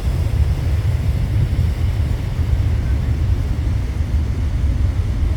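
Heavy Pacific surf in typhoon conditions, a steady deep rumble, with wind buffeting the phone's microphone.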